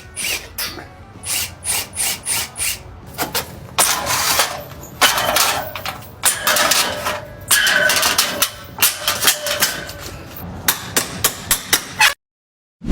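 Old aluminium sliding door frames being knocked and pried out: repeated sharp hammer strikes with longer stretches of scraping and rattling metal and a brief squeal, the strikes coming faster near the end before the sound cuts off abruptly.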